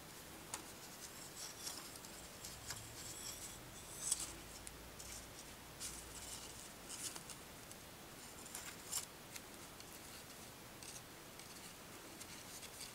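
Strip of palm leaf crackling and rustling as gloved hands fold and bend it, in scattered faint crisp clicks, the sharpest about four seconds and nine seconds in.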